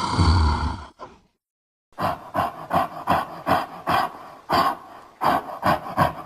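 A man's voice making caveman sound effects: a loud growl that cuts off about a second in, then after a short pause a rhythmic run of short breathy grunts, a little over two a second.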